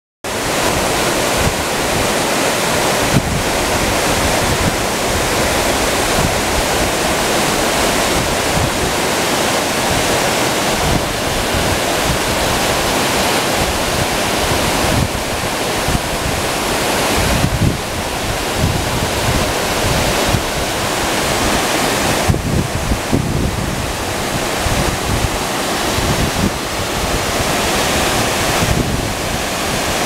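Waterfall cascading down a rock face into its plunge pool: a loud, steady rush of falling water.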